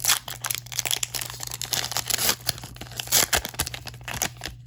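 Foil wrapper of a Pokémon TCG mini booster pack crinkling and tearing as it is opened by hand, in a dense run of sharp crackles with several louder rips.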